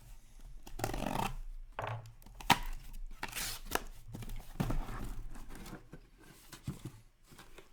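Sealed packaging of a hockey-card hobby case being torn and cut open by hand: irregular tearing and crinkling rustles with a few sharp clicks, the loudest about two and a half seconds in.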